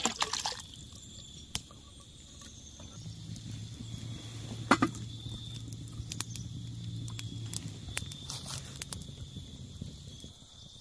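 The last of a can of corn sloshes out of the can into a stainless steel pot. Then a small campfire crackles with scattered sharp snaps as the metal pot is set down on the burning sticks.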